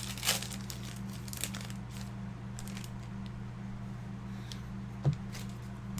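Trading card packs and cards being handled: scattered soft crinkles and clicks, the clearest just after the start and about five seconds in, over a steady low electrical hum.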